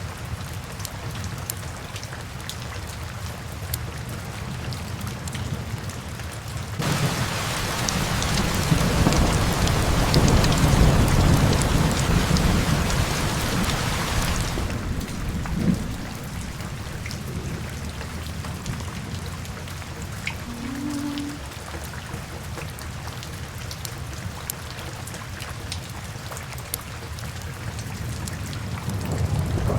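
Steady rain with scattered drop ticks. About seven seconds in, heavier rain and a low rolling rumble of thunder set in, swell, and die back about halfway through.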